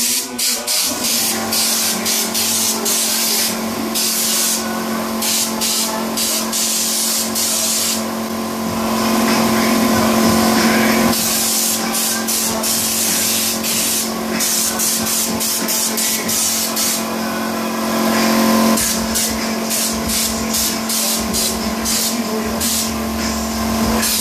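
Compressed-air bedliner applicator gun spraying U-Pol Raptor coating from its screw-on bottle, hissing in repeated bursts. Most are short; a longer spray runs from about a third of the way in. A steady hum runs underneath.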